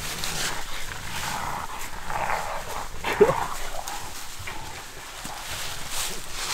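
Hog-hunting bay dogs barking at a wild hog they are holding in a ditch, with one sharp, loud bark about three seconds in.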